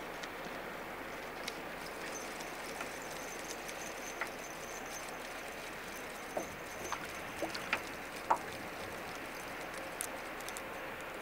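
Steady wind and lake-water wash around a small aluminum boat. In the second half come scattered light clicks and taps of rod and reel handling while a fish is fought on the line.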